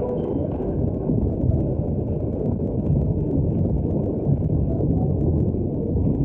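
Steady, muffled crowd hubbub in a sports hall, heard through a dull, low-fidelity old recording with faint crackles.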